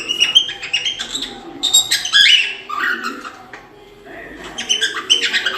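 A group of young farm birds chirping and peeping, many short high calls overlapping, with a brief lull a little past the middle.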